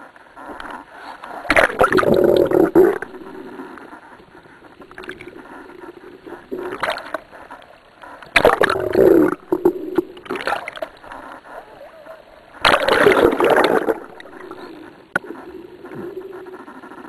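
Underwater bubbling and gurgling in three loud bursts of about a second each, a few seconds apart, with a shorter burst between the second and third, over a faint steady low hum.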